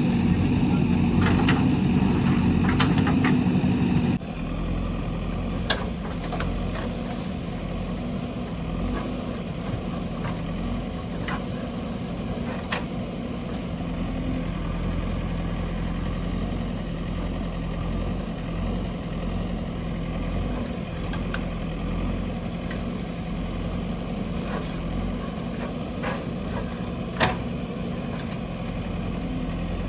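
Diesel engine of a JCB 3DX backhoe loader running, louder at first and then dropping abruptly about four seconds in to a steady, lower idle. A couple of sharp metallic clicks come through over the engine, the loudest near the end.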